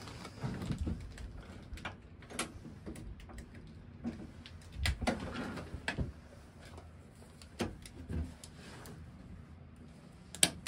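Scattered light clicks and knocks at irregular moments as electrical cables are handled and moved around a breaker box.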